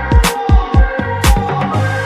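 Upbeat electronic background music with a punchy kick drum, snare hits and a steady bass line.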